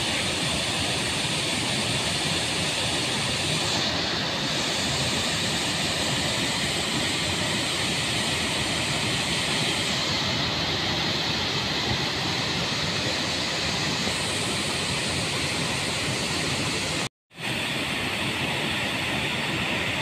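Water pouring down a dam spillway: a steady rushing noise that cuts out for a split second near the end.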